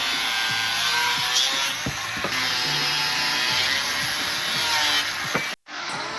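Power tool grinding on metal, a steady harsh whine whose pitch wavers a little under load. It cuts off abruptly about five and a half seconds in.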